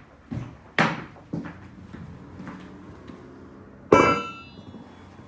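Hard parts being handled: a few dull knocks, then about four seconds in a sharp metallic clank that rings briefly, like a heavy steel engine part being set down on a hard surface.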